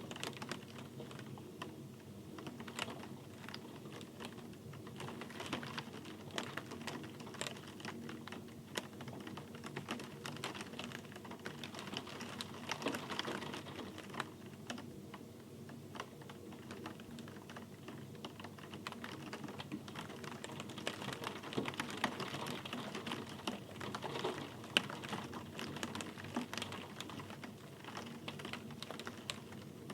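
Rain falling in close, irregular drops: a dense patter of small ticks and taps over a steady hiss, with a faint steady low hum underneath.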